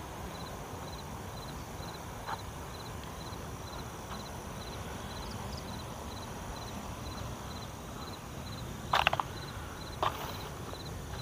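Night insects chirping in an even rhythm of about two chirps a second over a steady high buzz and a low rumble, with two footsteps on the ground near the end, about a second apart.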